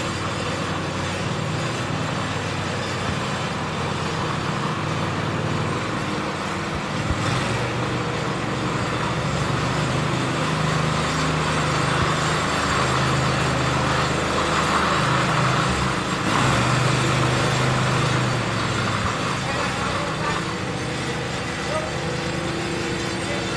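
Ride-on power trowel's engine running steadily, its note shifting a little in steps and growing somewhat louder through the middle.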